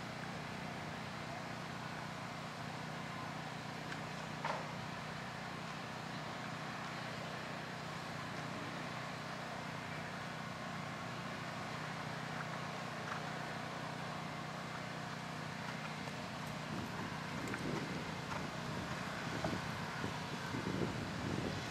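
Steady outdoor background noise with a low hum, a single click about four seconds in, and some louder uneven noise near the end.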